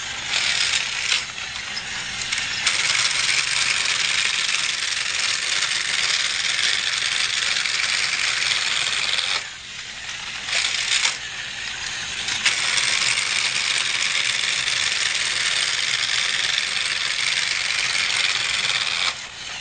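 Motorized Trackmaster toy train running on plastic track: a steady rattling clatter that drops off briefly about halfway through.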